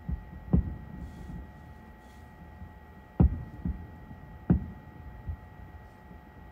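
Aerial fireworks shells bursting: about half a dozen low booms at uneven intervals, the loudest about three seconds in, over a faint steady hum.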